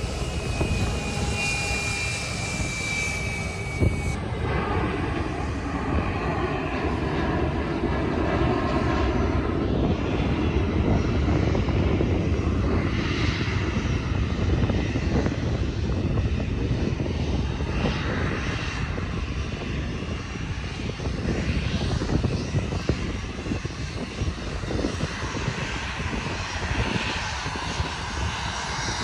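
Jet airliner engines running as the aircraft moves on the ground: first an Airbus A320 taxiing, with a high tone falling slightly in pitch, then, after a sudden change about four seconds in, a Boeing 737 rolling along the runway, its engine noise growing somewhat louder in the middle.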